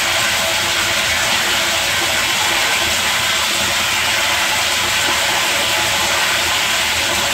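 Water pouring steadily into a closed water tank, heard from inside: a constant loud hiss that does not change.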